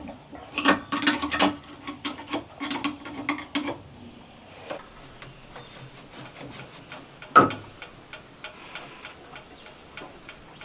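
Hand-tool work on the sawmill's metal parts: a quick run of ratchet-like mechanical clicking for about four seconds, then faint scattered ticking with one sharp knock about seven seconds in.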